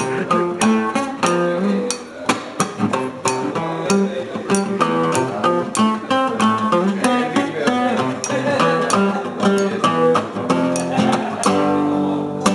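Instrumental music: guitar picking quick runs of notes over lower sustained notes, with no singing.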